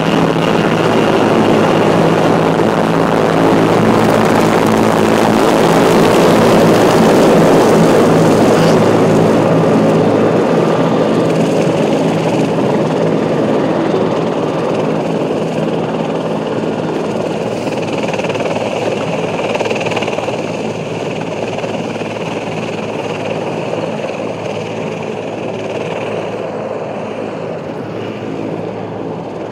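Military helicopter's engines and rotor running loud and steady at close range, then slowly fading as it lifts off and moves away.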